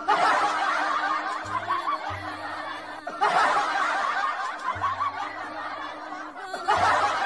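Tabby cat chattering: rapid, repeated clicking chirps made with the jaw trembling, the sound a cat makes while watching prey it cannot reach. It comes in runs, with short breaks about three seconds in and near the end.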